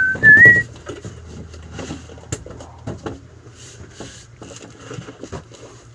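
A few short whistled notes, the last one rising and loudest about half a second in. After them come scattered knocks and clatter of shop goods and fixtures being handled and moved.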